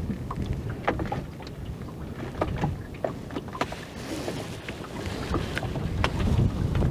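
Small waves lapping and slapping against the hull of a small open boat in a series of short irregular splashes, with wind rumbling on the microphone that grows stronger near the end.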